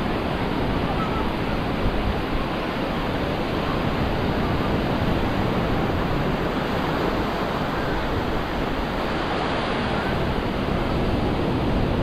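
Ocean surf washing onto a flat sandy beach: a steady, even rushing of small breaking waves.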